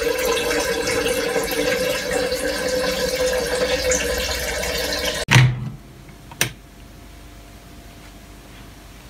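Kitchen tap running steadily into a stainless steel sink. The rush of water cuts off abruptly with a thump about five seconds in, leaving faint room tone and a single sharp click.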